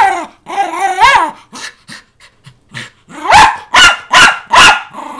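Agitated miniature schnauzer barking and yowling in something close to dog yelling. It gives a loud, wavering, drawn-out cry lasting about a second, a few short yips, then four loud barks in quick succession near the end.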